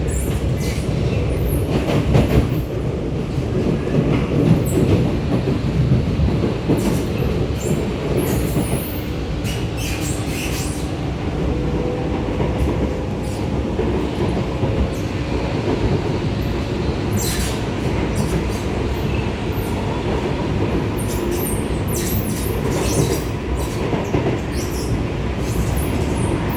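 R151 metro train running, heard from inside the car: a steady rumble of wheels on the track, broken again and again by short, high-pitched screeching that is called so annoying.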